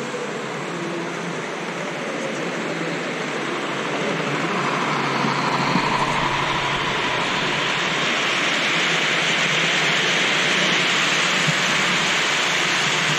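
Model train running on the layout, a steady rushing rumble of motor and wheels on track that grows louder about four seconds in and then holds.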